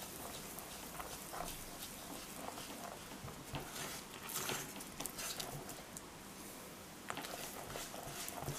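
Silicone spatula stirring a sticky yeast batter in a glass bowl: irregular wet squelches and scrapes as the dough is folded together.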